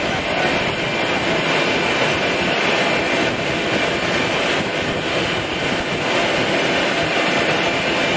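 Steady engine and airflow noise inside an aircraft cabin in flight, an even rush with no change in level.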